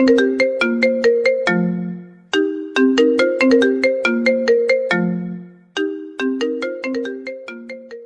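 Mobile phone ringtone melody: a quick run of short pitched notes ending on a longer low note, the phrase repeating about every three and a half seconds.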